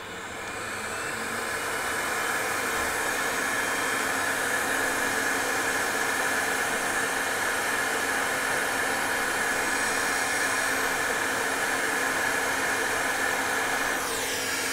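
Hot air rework station blowing steadily on a graphics card to melt the solder of a capacitor being removed: an even rush of air with a faint hum, building up over the first couple of seconds.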